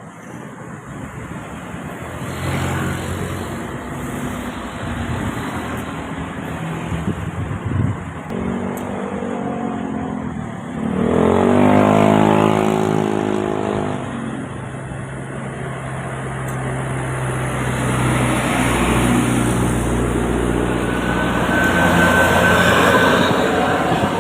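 Large bus engines running on a road. About halfway through, one bus passes close, its engine note loud and rising, then falling away.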